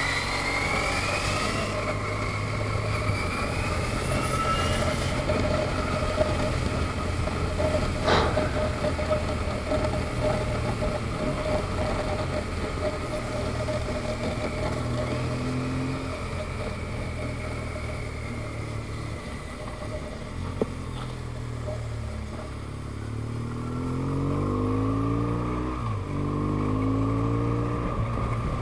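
Motorcycle engine under way, heard from the rider's camera with wind and road noise: the revs climb at the start, hold fairly steady, then rise in several short steps through gear changes near the end. A single sharp click sounds about eight seconds in.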